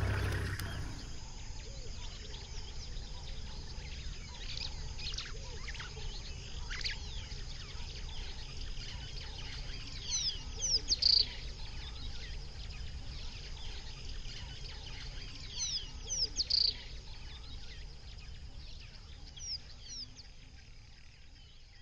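Birds chirping: short runs of quick descending chirps every few seconds over a steady low rumble. The sound fades out near the end.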